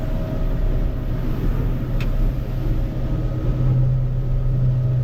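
Boat engine running steadily with a low hum that grows louder about three and a half seconds in. A single sharp click sounds about two seconds in.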